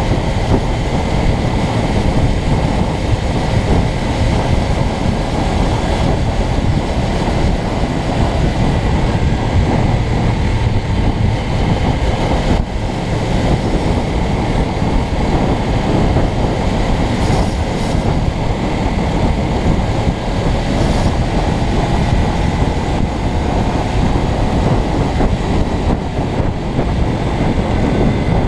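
Suzuki GSX250R's 248 cc parallel-twin engine running steadily through its standard exhaust while the bike is ridden along a road, with one brief dip in level a little under halfway through.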